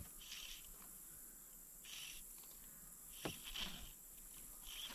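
Insects chirping in short, high bursts that repeat every second or so, with a faint click about three seconds in.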